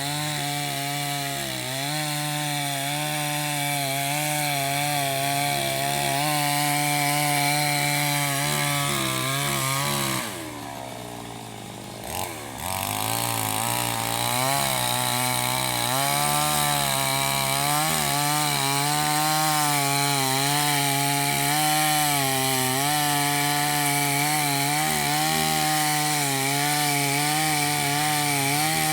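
Chainsaw running at high revs while cutting a mango tree, its pitch wavering as the chain bites. About ten seconds in it drops back to a lower idle for a couple of seconds, then revs up again and keeps cutting.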